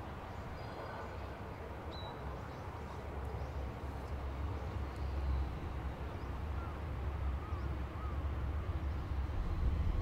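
Outdoor ambience beside railway tracks: a low rumble that slowly grows louder, with a few faint bird chirps.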